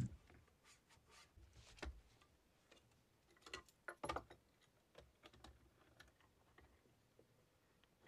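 A soft thump at the start, then scattered faint clicks and taps from gloved hands handling a wooden screen-printing frame on its press.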